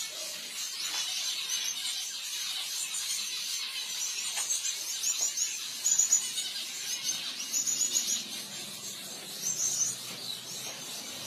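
Many caged finches chirping: short, high calls that repeat in quick clusters, several birds overlapping.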